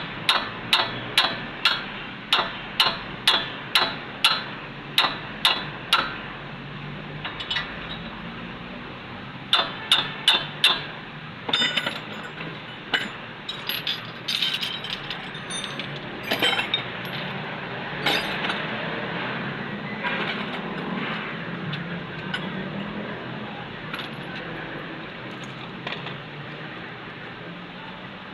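Sharp metallic taps, about three a second for the first six seconds, then a short run of four and scattered clinks of metal tools during front wheel bearing work.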